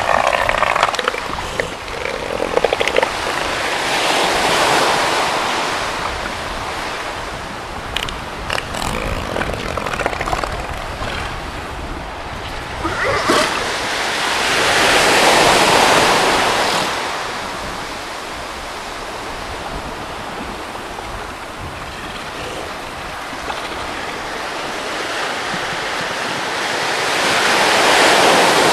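Ocean surf on a beach, a steady wash that swells three times as waves break, with a few brief sharp sounds near the middle.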